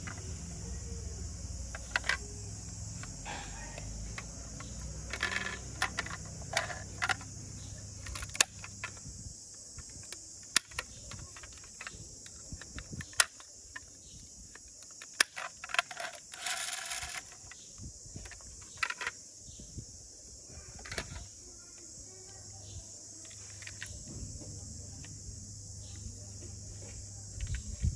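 Scattered sharp clicks and taps from hands handling diecast metal toy cars, with the small doors clicking open and shut.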